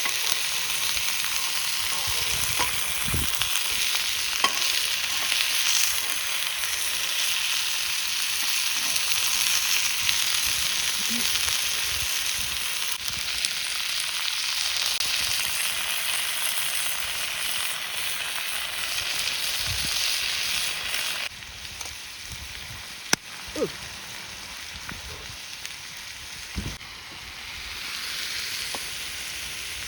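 A thick cut of meat sizzling hot over a campfire fire pit, with a few small pops. The sizzle starts loud, drops sharply about two-thirds of the way through, then carries on more softly and swells again near the end.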